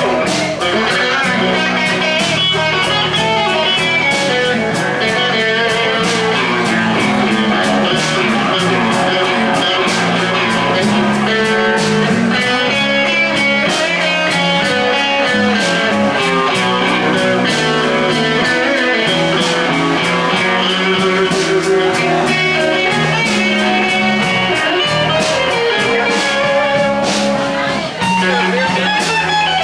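Band playing a slow blues instrumental passage, an electric guitar leading over bass and drums.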